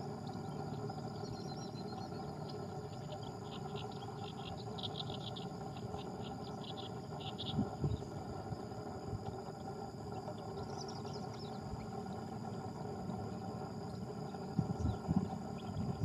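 Outdoor wetland ambience over a steady low drone: an insect chirps in rapid pulses through the first half, a short high bird call comes about eleven seconds in, and a few low thumps come near the end.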